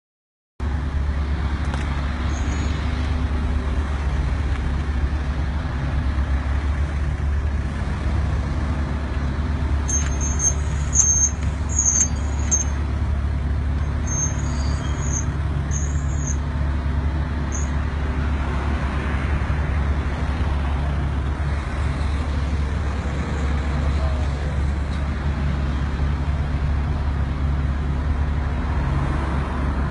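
Road traffic: cars running at low speed with a steady low rumble. A few short high chirps come between about ten and seventeen seconds in.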